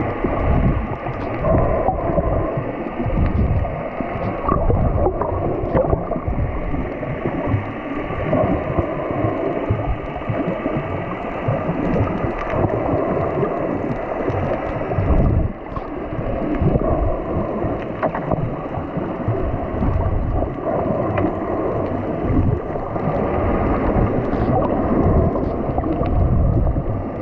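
Water sloshing and bubbling around an underwater camera, heard muffled and rumbling with constant small surges, with a brief dip about fifteen seconds in.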